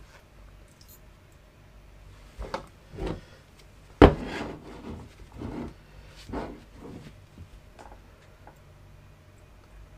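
Handling noise on a wooden table as a nickel strip is laid across two lithium-ion cells and a spot welder's copper probes are brought up: a scatter of light knocks, taps and rubbing, with one sharp click about four seconds in as the loudest.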